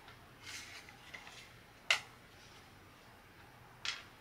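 Light clicks and taps of laser-cut plywood pieces of a miniature wooden book-nook kit being handled and set against each other, with a soft scrape about half a second in. The sharpest click comes about two seconds in, another near the end.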